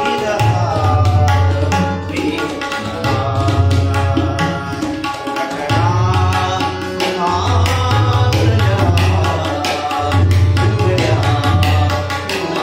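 Indian devotional-style music: a tabla pair plays a fast, dense rhythm, with the bass drum (bayan) giving a deep resonant boom in repeated phrases. A man sings over it, accompanied by a harmonium's sustained reedy chords.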